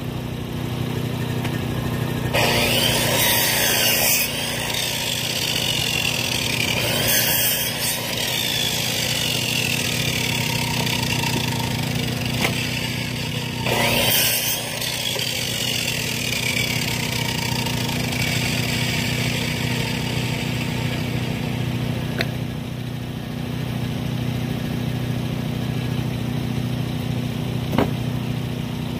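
Timbery M100 bandsaw mill's gas engine running steadily, with brief louder rushing bursts about two, seven and fourteen seconds in.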